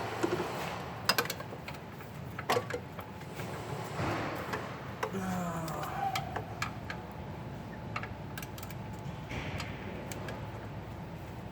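Metal hand tools clinking and knocking in a truck's engine bay, a socket and extension being fitted to the serpentine belt tensioner: scattered sharp clicks, loudest in the first three seconds.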